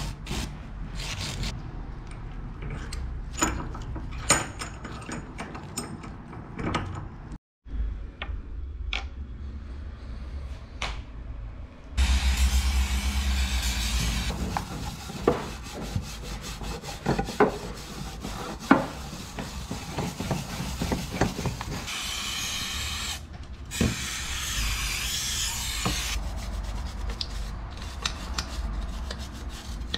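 Scrubbing and rubbing on a grimy bicycle crankset and chainrings, with scattered knocks of metal parts. Long hisses of aerosol spray break in, one about twelve seconds in and two more a little past two-thirds of the way through.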